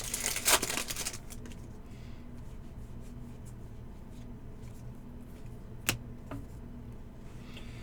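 Trading cards and pack wrapping rustling and sliding in the hands for about the first second, then a steady low hum with one sharp click about six seconds in.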